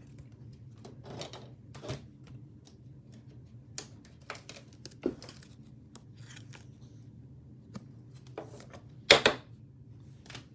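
Trading cards and clear plastic card holders being handled: scattered light clicks, taps and rustles, with a louder one about nine seconds in, over a faint steady hum.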